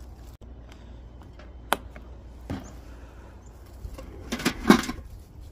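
Two single knocks, then glass bottles and a metal gas canister clattering together as a hand rummages in a plastic bucket about four and a half seconds in.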